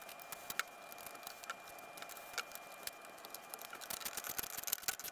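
Small steel machine screws being handled and set by hand into holes in the sled's aluminum plate: scattered light metallic clicks and ticks that come more often near the end.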